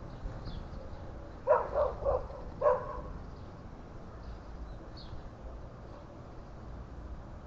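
A dog barking, four quick barks about a second and a half in, with faint bird chirps and a steady low rumble underneath.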